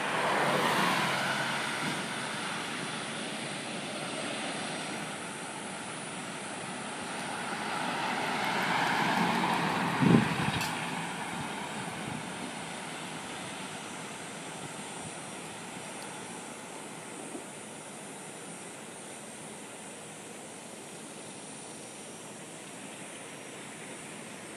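A van towing a 1957 Wanderer aluminium travel trailer passes by on the road. The engine and tyre noise swells to its loudest about ten seconds in, with a brief thump as it goes by, then fades slowly into the distance.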